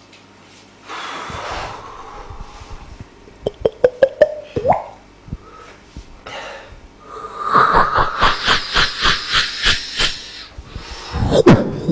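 Beatboxing into a handheld microphone: breathy hisses, a few sharp clicks and a short rising squeak, then a fast run of hissing hi-hat-like pulses at about four a second. Near the end, heavy kick-drum-like beats come in.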